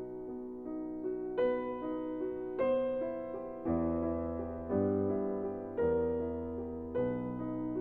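Background music: slow, gentle piano chords, a new chord struck about every second.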